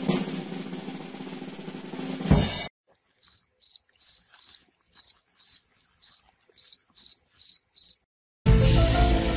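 Intro music ending in a drum roll about two and a half seconds in. Then a cricket-chirping sound effect of about a dozen short high chirps, two to three a second, over silence. New background music starts near the end.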